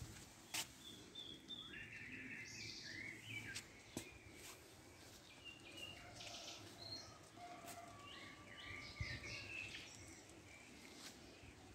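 Faint birdsong outdoors: small birds giving short chirps and trills, on and off, with a couple of sharp clicks.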